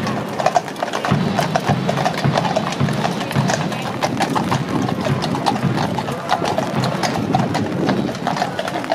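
Hooves of several carriage horses clip-clopping on the road as horse-drawn carriages pass, in a dense, uneven patter of strikes, with music in the background.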